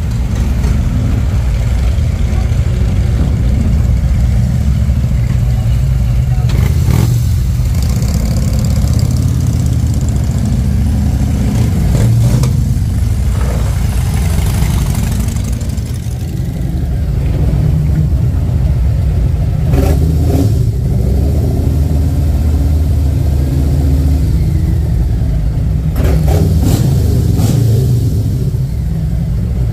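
Harley-Davidson V-twin motorcycle engines running at low speed in a slow line through narrow rock tunnels, a steady loud low rumble.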